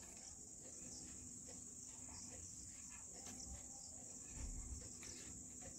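Quiet background with a steady high-pitched insect-like chirring, like crickets, and faint scratches of a felt-tip whiteboard marker writing on the board.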